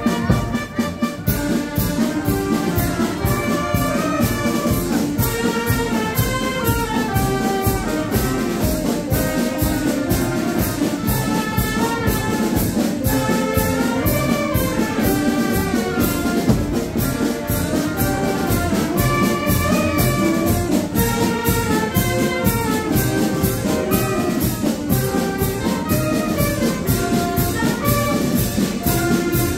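Processional brass band playing a march: a brass melody over a steady drum beat.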